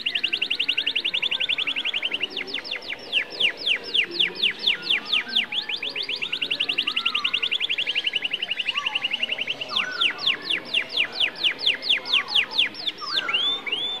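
Domestic canary singing in long rolled trills: very fast runs of sharp falling notes alternate with slower runs of about four or five notes a second, and near the end the song turns to a few rising-and-falling notes.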